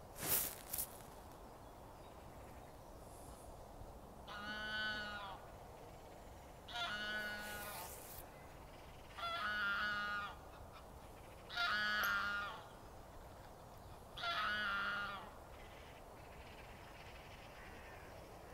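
Waterfowl calling five times, each a drawn-out honk of about a second, spaced about two and a half seconds apart. Two sharp knocks come right at the start.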